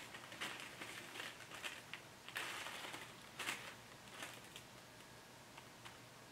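Paper pattern pieces rustling and crinkling as hands fold and handle them, in short faint bursts that thin out after about four seconds.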